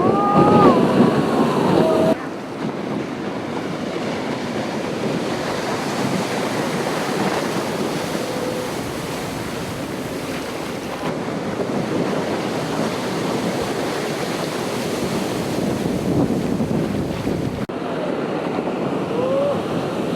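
Ocean surf: a steady rush of breaking waves, with abrupt shifts in level about two seconds in and again near the end.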